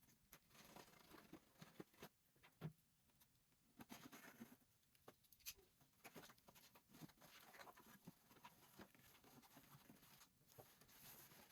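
Near silence with faint, scattered scratching and clicking, the sound of packaging being handled and opened.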